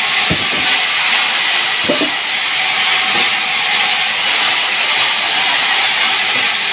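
Sawmill saw cutting through a sengon log: a loud, steady hissing rasp, with a few brief knocks.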